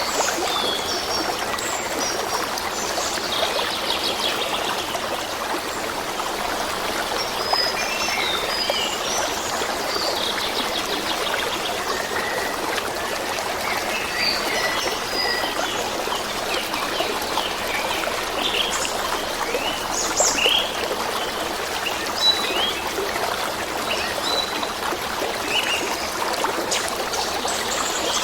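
A stream running steadily, with many small birds chirping and whistling over it in short, scattered calls.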